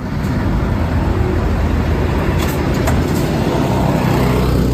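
Truck engine running with a steady low rumble under a broad, even noise.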